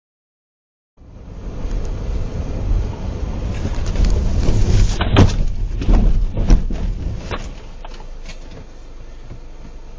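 Car driving with engine and road noise, rising from about a second in. About halfway through comes a collision: several sharp bangs and crunches within about a second and a half. Quieter steady noise follows.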